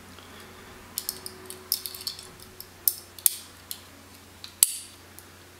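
Small metal extension springs clicking and clinking against a 3D-printed plastic phone mount as they are hooked onto its pegs: a scatter of light, bright clicks, with one sharper snap about three-quarters of the way through.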